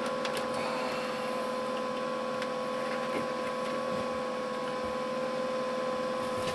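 Steady machine hum with a constant mid-pitched whine, and a few faint clicks and taps.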